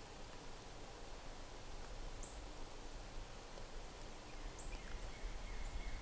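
Quiet woodland ambience with a few short, high songbird chirps, one about two seconds in and another near the end. A low rumble grows louder near the end.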